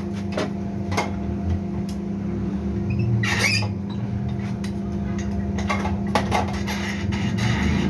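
Metal clicks and knocks as parts are handled and positioned, with a brief crackling burst of a tack weld about three seconds in, over a steady low hum.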